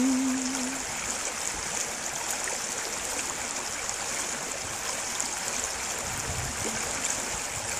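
Shallow river water running over stones in a steady rush. A held sung note fades out in the first second.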